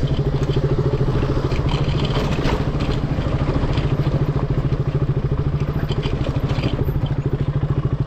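Single-cylinder engine of a KTM Duke motorcycle running steadily at low speed in a low gear, with an even, rapid firing pulse.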